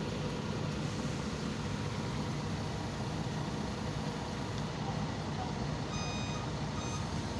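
Heavy engine machinery running steadily with a constant low hum at a drilling site, and a brief high-pitched beep sounding twice near the end.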